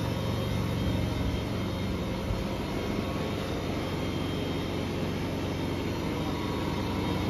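A vehicle engine running steadily, a low, even drone.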